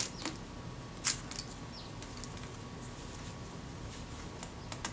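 A few light clicks of small metal camera parts knocking against each other and a clear plastic parts tray as fingers sort through them. The clearest click comes about a second in, and another comes near the end.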